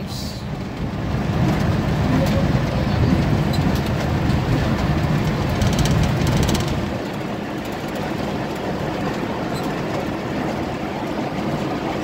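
Road noise heard from inside a moving vehicle's cabin: a steady low rumble of engine and tyres on the road. The rumble eases a little about seven seconds in.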